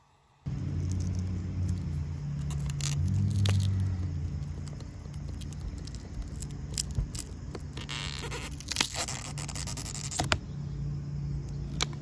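Screwdriver prying a stock reflector out of a motorcycle saddlebag's chrome bezel: irregular scraping and crackling as the heat-softened 3M double-sided tape tears loose, densest about eight to ten seconds in. A steady low hum runs underneath from about half a second in.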